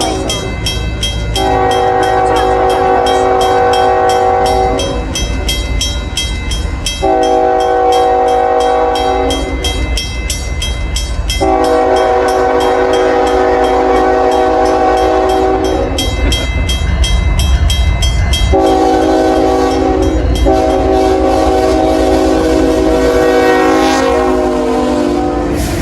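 Locomotive chime air horn sounding five long blasts, each several notes at once, in a horn show. Under it are a fast, regular clanging and the low rumble of the train.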